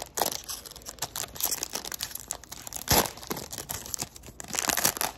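Foil wrapper of a Panini Absolute Football trading-card pack crinkling and tearing as it is ripped open by hand, with a sharper crackle about three seconds in and a denser run of crinkling near the end.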